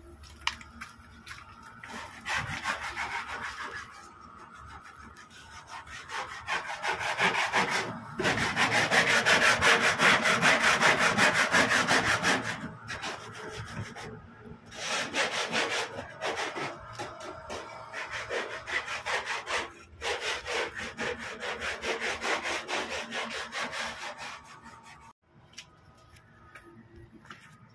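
Rough, rapid scraping and rubbing strokes, in stretches of several seconds with short pauses between: old fibreglass insulation being worked off the sheet-metal panel of an air-conditioning unit. The longest, loudest stretch comes about a third of the way in.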